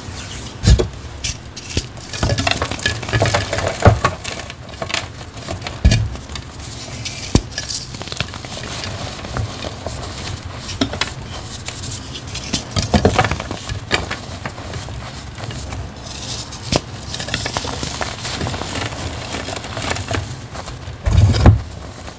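Dyed, glitter-coated reformed gym chalk blocks crushed and crumbled by hand: irregular soft crunching and crackling, with louder cracks every few seconds and the loudest about 21 seconds in.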